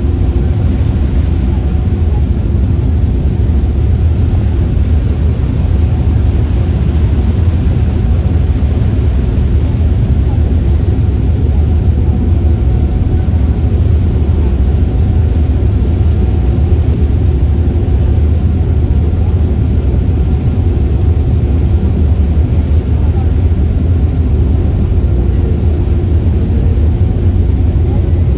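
Ferry's engine running with a steady, loud low rumble and a faint even hum above it.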